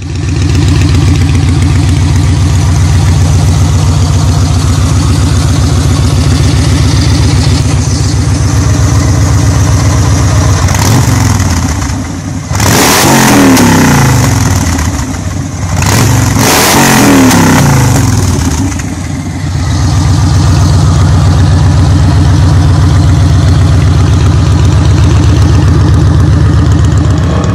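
Cruiser motorcycle engine idling loudly through its chrome exhaust pipes, revved up twice in the middle and settling back to a steady idle each time.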